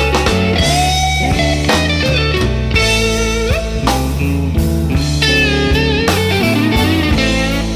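Blues-rock music: an electric guitar playing bent and sliding notes over bass and drums, with no singing.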